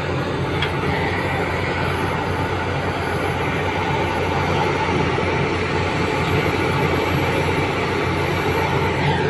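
Heavy diesel engines running steadily, a SANY hydraulic excavator working under load as it digs and swings earth into a tipper truck, making a continuous low drone.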